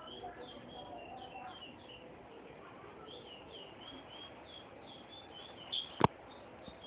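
Small caged songbird, a curió (chestnut-bellied seed-finch), giving short high chirps over and over, about three a second. A single sharp click about six seconds in.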